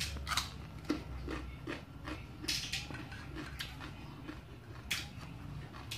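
A person chewing pieces of raw green papaya, with irregular short wet mouth clicks and smacks.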